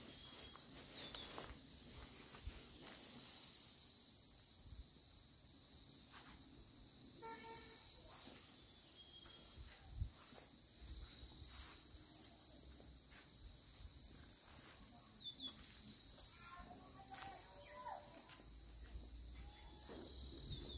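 Steady, high-pitched chorus of insects singing, with one short thump about halfway through.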